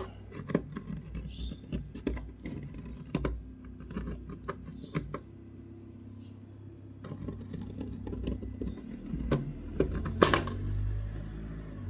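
A hand tool scraping and clicking irregularly around the edge of a freshly punched hole in aluminium sheet, taking off the sharp punched lip. A louder knock comes near the end.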